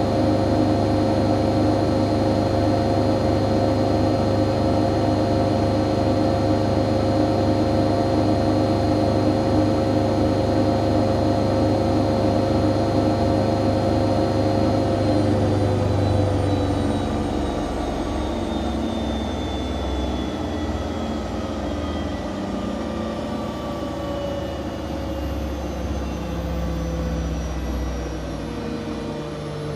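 Siemens Siwamat IQ 716 washing machine spinning at speed, a steady hum and whine. About halfway through, the whine starts falling in pitch and the sound eases off as the drum slows down from the spin.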